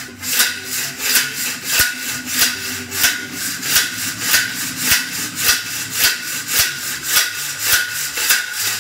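Flat steel strips of a folding gate's crossed scissor lattice sliding against one another as the lattice is worked back and forth by hand, in regular strokes about every 0.6 seconds.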